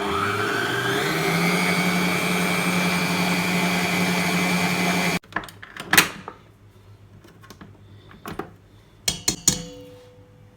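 Electric mixer motor whipping thick cooked milk pudding with whipped-cream powder. It spins up in pitch over the first second, runs steadily for about five seconds, then cuts off suddenly. A few separate knocks and clatters follow.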